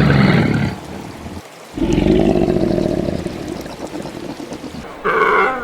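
Animal calls. The first is a pitched call ending under a second in. The second is a longer, rougher call a little under two seconds in. The third is a short pitched call near the end.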